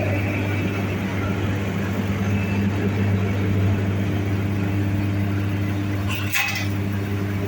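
Hay grinder running with its tractor, a steady low machine hum, with a brief rushing burst about six seconds in.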